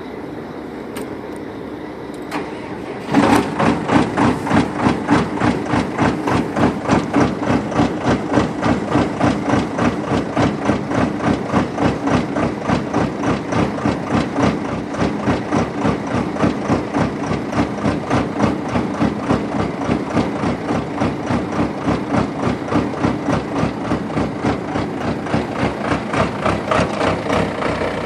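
John Deere diesel engine of a Vermeer 36x50 directional drill catching on a cold start about three seconds in, then idling roughly with an uneven, pulsing beat.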